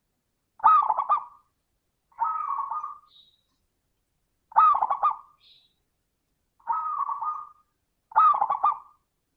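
Zebra dove (perkutut) cooing: five rolling, stuttering coo phrases about a second or two apart, loud and full, with faint high chirps between them.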